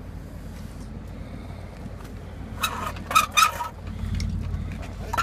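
Acceleration F1 race car's engine idling at standstill, a low steady rumble that grows louder about four seconds in, with a few short sharp sounds near the middle.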